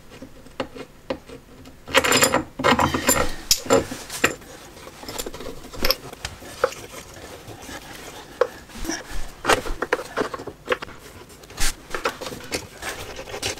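Hand work on a homemade belt sander that is not running: irregular clicks, knocks and light rubbing of metal and wooden parts being handled, busiest about two to three seconds in.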